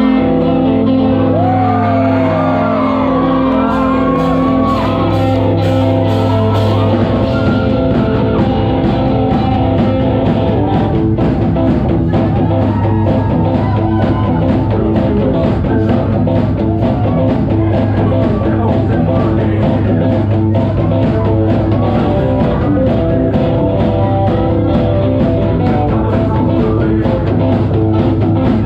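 Live psychobilly band playing loud: hollow-body electric guitar, upright double bass and drum kit. A sliding guitar line stands out in the first few seconds over a steady bass line and a fast drum beat.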